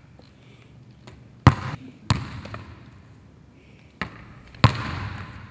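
Four sharp impacts echoing around a gymnasium, coming in two pairs with the hits in each pair about half a second apart; the third impact is the weakest.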